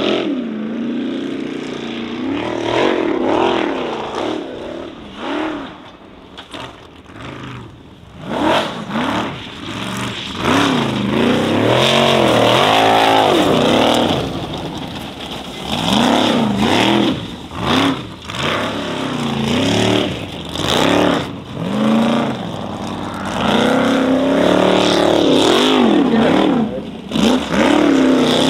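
Formula offroad buggy's race engine revving hard as it climbs a steep dirt hill, the pitch rising and dropping sharply again and again with the throttle. It eases off briefly about six seconds in, then revs hard again.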